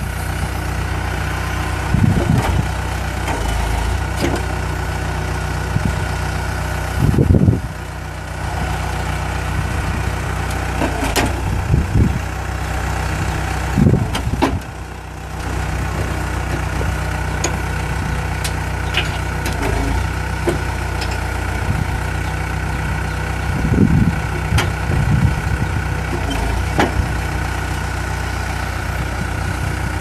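Cat compact track loader's diesel engine running steadily at idle, with several brief louder surges as the hydraulics work the six-way dozer blade.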